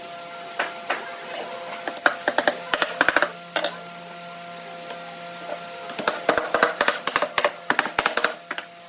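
Rapid, sharp tapping and knocking of woodworking tools on wood, in two quick flurries, over a steady faint tone.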